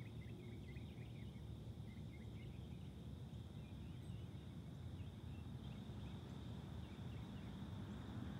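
Quiet outdoor ambience: a steady low rumble, with faint bird chirps over the first few seconds.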